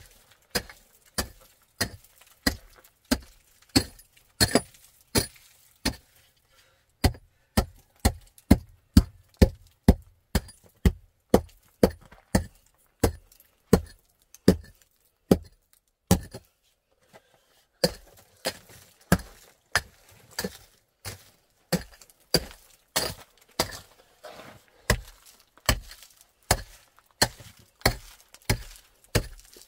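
A short-handled pick striking and chopping into gravelly dirt, a run of sharp strikes about two a second with a short break partway through.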